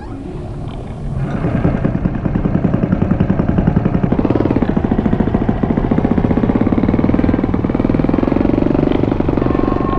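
Dense, engine-like mechanical throbbing, a rapid pulsing that swells about a second in and stays loud, its main band creeping slightly up in pitch toward the end.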